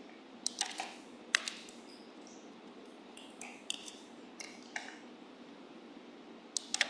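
Computer mouse clicking while slides are changed: about a dozen short, sharp clicks spread unevenly, some in quick pairs and triples, over a low steady hiss.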